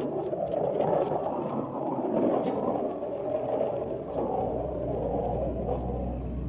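A dog vocalizing continuously in a drawn-out, moaning sound, with a low hum growing underneath from about two-thirds of the way in.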